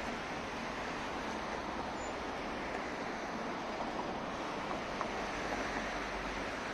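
Steady wash of city road traffic, a continuous even noise with no single vehicle standing out.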